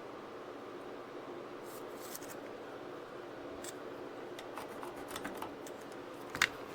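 A steady faint hum with a few light clicks and handling sounds scattered through it.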